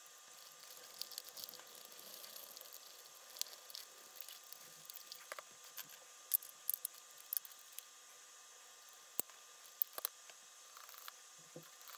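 Scattered light clicks and taps of hard plastic parts being handled and fitted together on a walking duck toy's body and orange feet.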